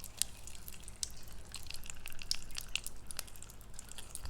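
Scattered small wet clicks and drips from the sticky jelly dessert, its syrup and popping candy, as it is handled.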